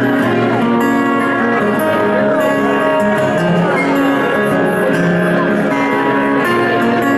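Acoustic guitar played solo live, picked notes and chords ringing over one another, some sliding up or down in pitch.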